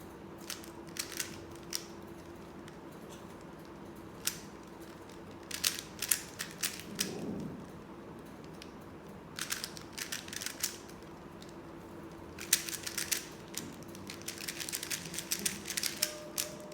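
Plastic 3x3 Rubik's cube being turned quickly by hand: rapid runs of clicking layer turns in bursts, with short pauses between them, over a faint steady hum.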